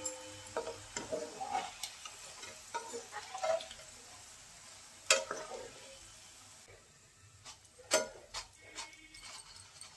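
Bitter gourd slices deep-frying in hot oil with a light sizzle, as a steel spatula and then a wire-mesh strainer stir and scoop them, clinking and scraping against the wok. The loudest knocks of utensil on pan come about five seconds in and again near eight seconds.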